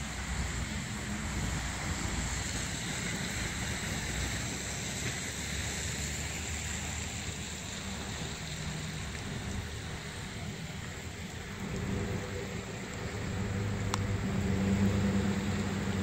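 Outdoor wind noise rumbling on the microphone over a steady hiss, growing louder about three-quarters of the way through as a low steady hum, like a vehicle engine, comes in underneath. A single sharp click sounds near the end.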